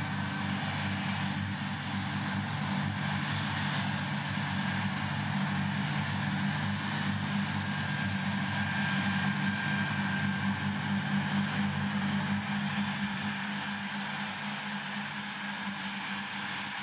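A Claas tractor's diesel engine runs steadily under load, driving front and side grass mowers, with the even whirr of the mowers cutting grass over it. The sound grows a little louder in the middle and eases off near the end.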